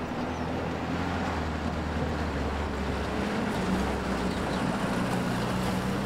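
Vintage saloon car's engine running as the car pulls up, its low note changing about halfway through.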